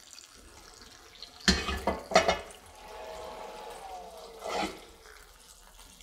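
Cast iron skillet set down on the range: two clunks about a second and a half and two seconds in, then a faint squeak that falls in pitch and a brief rustle.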